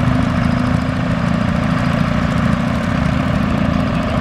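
Vintage John Deere tractor engines running at low speed while the tractors creep forward, a steady low drone with no change in pitch.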